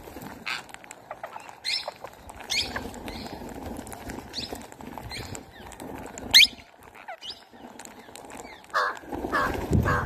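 A flock of rose-ringed parakeets calling: many short, high-pitched calls scattered through, the loudest a single sharp call about six seconds in. Near the end the calls come lower and closer together.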